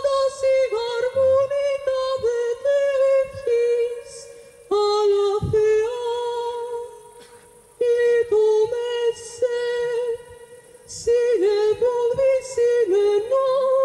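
A woman singing solo in long held notes, in phrases with short breaths between them.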